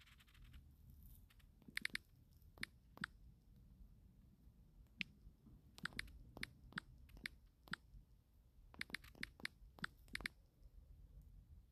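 Faint, irregular taps of typing on a smartphone's on-screen keyboard, one short click per keystroke with uneven gaps between them.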